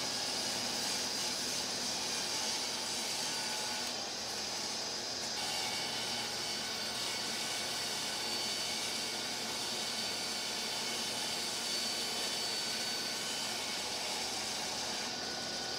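Woodworking machine running steadily as a cutting board in a sled is worked across it: a constant hiss with a thin high whine.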